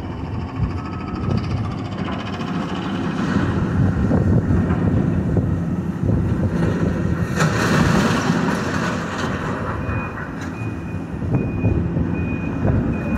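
Demolition excavator's diesel engine running steadily while its grapple works the rubble, with a louder stretch of crunching and clattering metal debris about halfway through. Over the last few seconds a reversing alarm beeps steadily, about one beep every two-thirds of a second.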